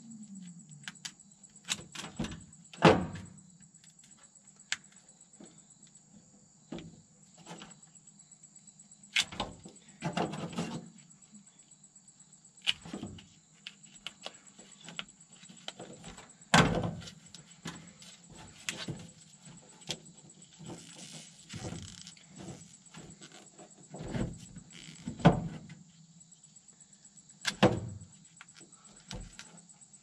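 Hands working through a truck's wiring harness and plastic wire loom: irregular clicks, knocks and short rustles of wires, loom and connectors being moved and pulled.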